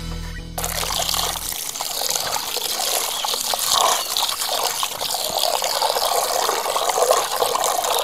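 A stream of water pours and splashes into an earthenware bowl while hands rub and wash turmeric-coated quail pieces in it.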